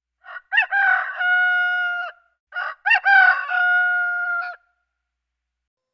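A rooster crowing twice, each crow about two seconds long: a few short rising notes, then a long held note that cuts off.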